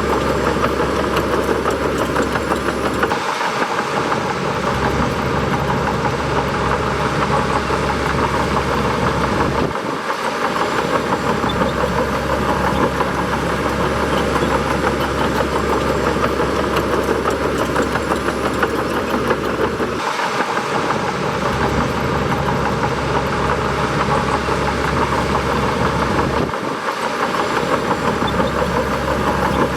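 Bulldozer's diesel engine running steadily, with the low rumble dropping out briefly four times.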